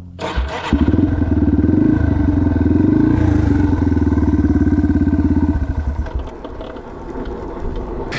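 Single-cylinder four-stroke dirt bike engine. After a knock it opens up about a second in, runs loud under throttle for several seconds with its pitch wavering, then the throttle closes past the middle and it drops back to a quieter, lower running.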